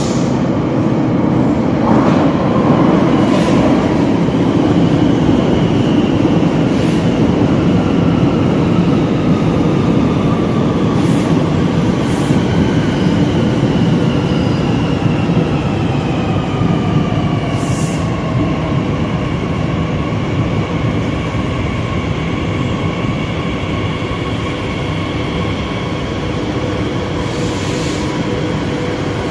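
Z 50000 Francilien electric train braking into an underground station. There is a steady rumble of wheels on rail, and the traction motors give a whine that falls in pitch as the train slows. Brief high hisses come every few seconds, and the whine settles into a steady hum as the train comes to a stop near the end.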